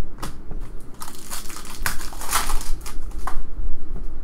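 Wrapper of a Panini Contenders Draft Picks basketball card pack crinkling and tearing as it is ripped open by hand. The crinkling starts about a second in and stops a little after three seconds, with a few sharp crackles.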